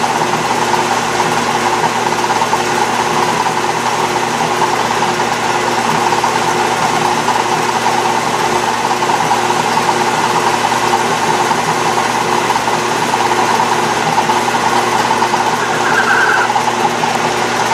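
Atlas metal lathe running steadily under power, a carbide tool taking a finishing turning pass on a die-cast zinc handwheel: a steady machine hum with a hiss above it.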